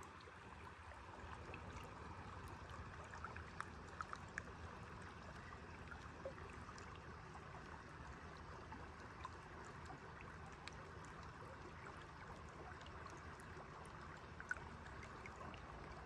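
Shallow mountain stream running over stones: a faint, steady rush of water with scattered small ticks.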